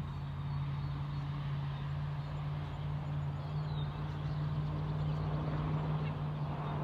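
Steady low hum of a running motor.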